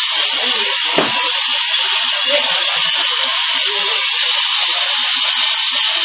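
Large remote-control helicopter hovering: its electric motor and main rotor make a steady, high buzzing whine. A brief knock about a second in.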